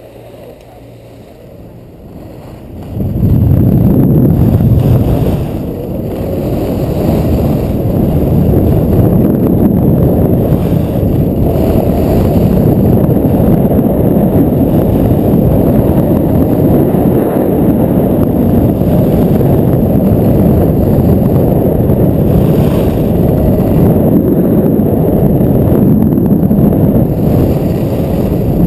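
Wind buffeting the microphone of an action camera carried by a skier moving fast downhill: a loud, steady rumble that starts suddenly about three seconds in once the skier gets going.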